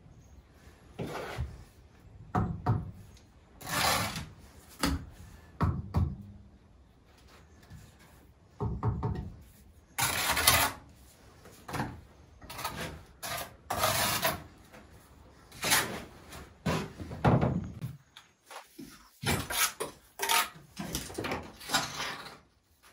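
A mason's trowel scraping mortar and bricks being pressed and rubbed into place while a soldier course of bricks is laid over a fireplace opening: a string of separate rasping scrapes at irregular intervals, with a short lull near the end.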